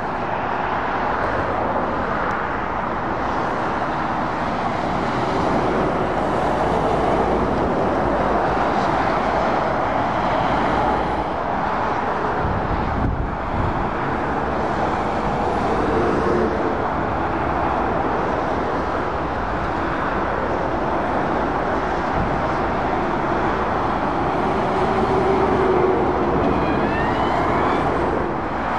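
Passing road traffic: lorries and cars running by on a dual carriageway, a steady rush of tyres and engines that swells a little as heavier vehicles pass.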